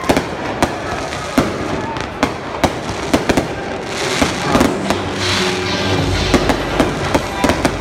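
Aerial fireworks going off: a dozen or more sharp bangs at irregular intervals, some in quick clusters, with music playing underneath.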